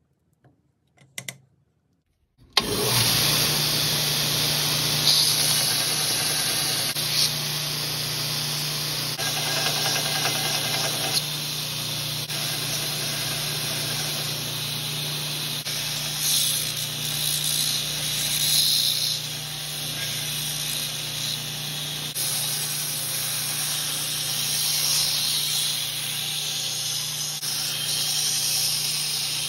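Belt grinder running steadily with a constant motor hum, its abrasive belt sanding a wooden knife handle and grinding the steel of a machete blade. The sound starts abruptly about two and a half seconds in, after a few faint clicks.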